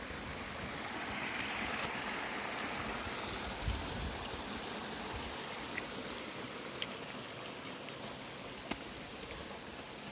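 River water running steadily over rocks, with a few short sharp clicks on top.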